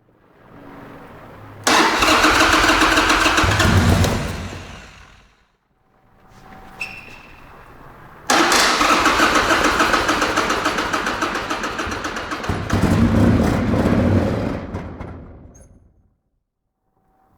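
Buell X1 Lightning's V-twin turned over by its electric starter in two cranking attempts, a short one and then a longer one of about six seconds, each spinning down without the engine catching. Each attempt is preceded by a quieter hum. The engine won't fire because its fuel pump has failed.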